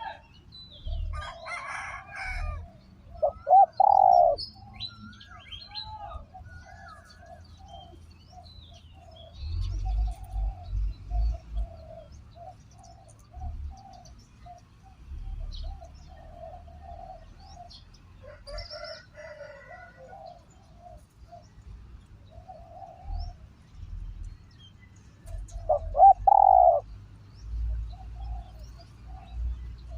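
Spotted dove cooing in a long run of short, repeated low coos, with two louder calls about four seconds in and near the end. Other birds chirp now and then, over a low rumble.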